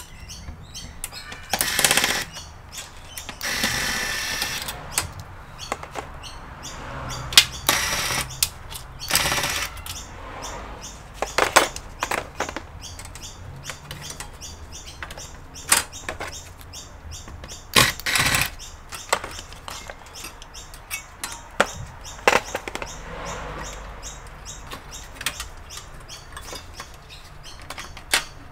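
Irregular clicks, knocks and scrapes of hand work on an Asus all-in-one PC being taken apart: tools, screws and plastic casing parts being handled. About four seconds in there is a longer scraping sound.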